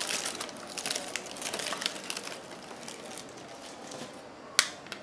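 Honeycomb kraft packing paper crinkling and crackling as it is handled and pulled apart, thinning out after about two seconds, with a single sharp click near the end.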